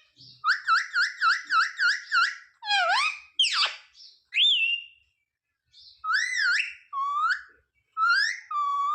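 Indian ringneck parakeet whistling and calling. It opens with a quick warbling run of repeated notes, about four a second, then gives a handful of separate whistled notes that glide down and up, with short pauses between them.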